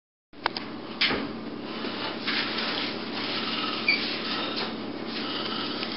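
Camcorder room noise: a steady hiss with a low hum, two sharp knocks within the first second, then scattered soft bumps and rubbing.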